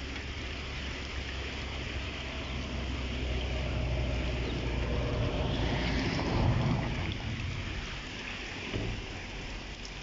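Heavy rain pouring onto a muddy dirt road and its puddles, a steady hiss, with wind rumbling on the phone's microphone. It swells louder about six seconds in, then eases.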